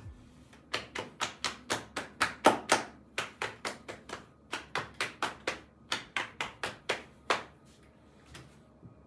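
A quick rhythmic run of sharp slaps, about four a second, with a brief break midway; they stop after about seven seconds and are followed by a couple of faint taps.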